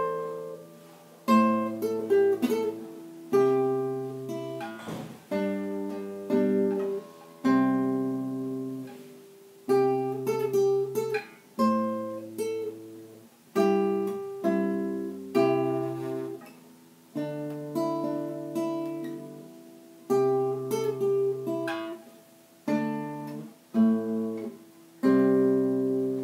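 Solo acoustic guitar playing a prelude: plucked chords over bass notes, about one a second, each struck sharply and left to ring out and fade.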